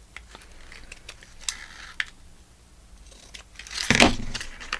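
Paper craft materials being handled on a tabletop: a few light clicks and short rustles, then a louder rustle of paper about four seconds in.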